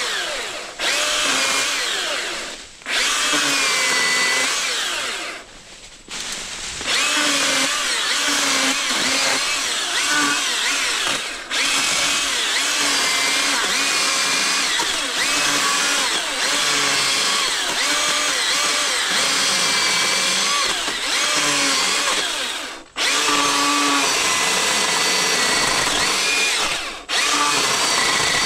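Milwaukee M18 Fuel 2727-20 battery chainsaw running in long bursts while cutting branches of a felled tree. Its electric motor whine dips in pitch and recovers as the chain bites into the wood. It stops briefly several times as the trigger is let off.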